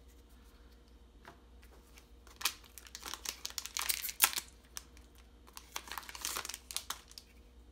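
A trading-card booster pack's shiny wrapper being torn open and crinkled by hand, in two stretches of crackling: one starting about two and a half seconds in, the other around six seconds in.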